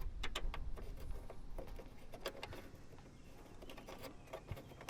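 Irregular light clicks and taps from hand tools and fasteners being handled while fitting the fender's underside bolts, over a faint low rumble.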